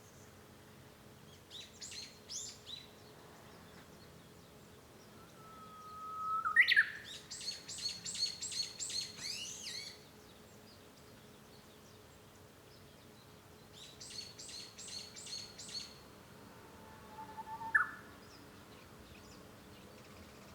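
Japanese bush warbler singing its 'hoo-hokekyo' song twice: a long whistled note that swoops sharply upward at the end, about six seconds in and again near the end. Bursts of rapid, high, repeated chirps come between the songs.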